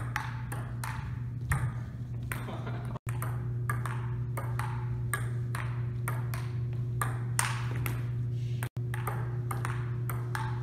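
Table tennis rally: a ping pong ball clicking off paddles and a folding-table playing surface, several hits a second, over a steady low hum. The clicking breaks off for an instant twice.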